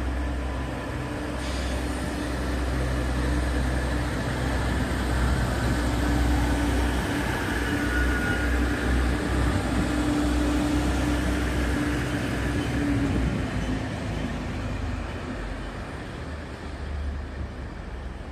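DB Class 612 diesel railcar running past at close range, its diesel engines giving a steady low rumble with a pitched engine note. The sound fades away after about two-thirds of the way through.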